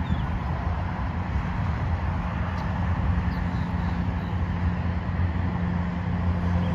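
Steady highway traffic noise: the rumble of passing cars and trucks, with a low engine drone that holds steady through the middle and latter part.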